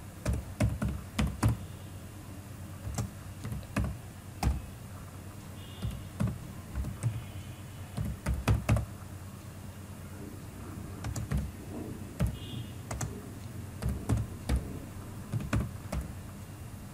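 Computer keyboard typing: single key clicks at an unhurried, uneven pace, in short runs with brief pauses.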